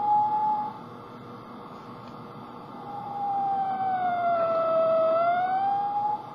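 Circuit-bent toy electronic drum kit putting out a held electronic tone. The tone stops after under a second, comes back about three seconds in, sags in pitch and rises back up, then cuts off near the end, over a steady hiss.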